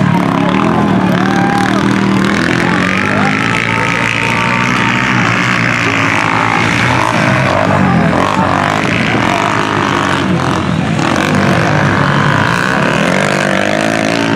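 Motocross dirt bike engines revving, rising and falling in pitch as the bikes ride the muddy grass track.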